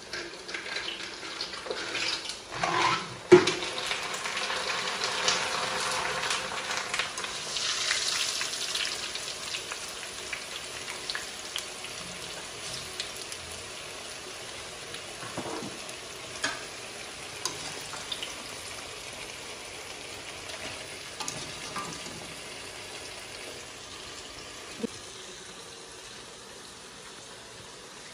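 Hot oil in a black iron kadai sizzling as a batch of coloured fryums is tipped in, with a sharp knock about three seconds in as they go in. The fizzing is strongest a few seconds later and slowly dies down as they fry, with a few light clicks from the slotted spoon.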